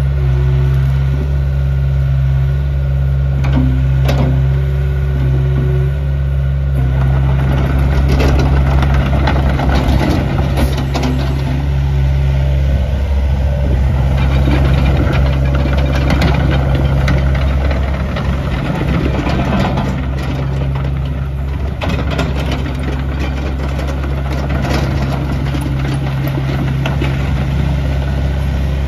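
Hitachi compact excavator's diesel engine running steadily. From about seven seconds in, knocks and hydraulic noise join it as the machine tracks and slews.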